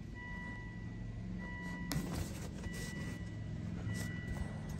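A high electronic beep sounds on and off several times, typical of a car's warning chime, over a steady low hum in the Volvo XC90's cabin. A single sharp click comes about two seconds in.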